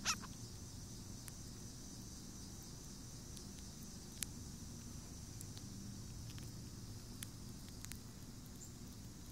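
A young chipmunk cracking and chewing sunflower seed shells: small sharp clicks at irregular intervals, one clearer about four seconds in, over a steady high drone and low background hum.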